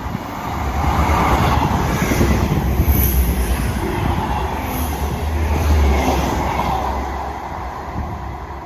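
A train passing through the station: wheels and rail noise with a low rumble, growing loud about a second in and staying loud for several seconds before fading away.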